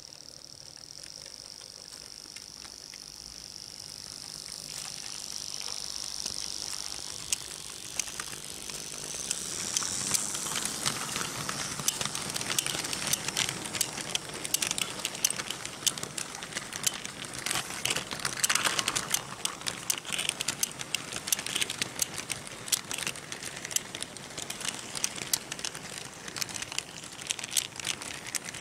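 Märklin H0 model trains running on metal M-track: a steady high whine from a passing model locomotive fades over the first several seconds. From about ten seconds in, a freight train rolling close by gives a dense, irregular clicking and rattling of small wheels over the rail joints and points.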